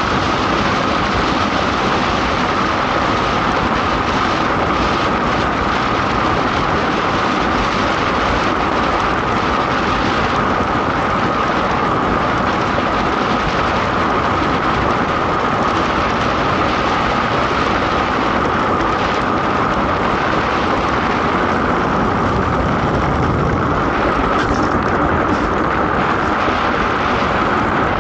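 DN ice boat sailing at speed: a steady, loud rushing noise of its steel runners on the ice mixed with wind, with a steady high hum running through it.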